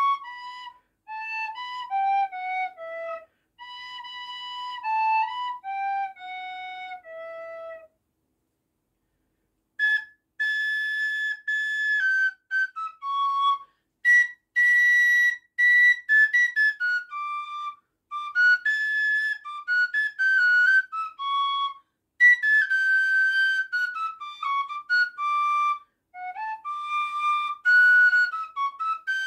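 A fujarka, a small wooden Polish highland shepherd's flute, played solo. A tune of short falling phrases stops about eight seconds in. After a pause of about two seconds, a higher, louder tune with quick ornamented notes begins.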